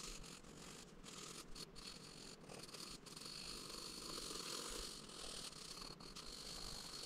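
Pencil scratching faintly across paper as it shades a sketch in hatched strokes, a continuous rough rasp with a few brief breaks.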